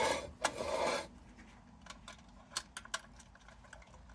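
Rubbing and rustling for about the first second, then a few light clicks and taps: the metal parts of a tin camping lantern being handled and fitted together.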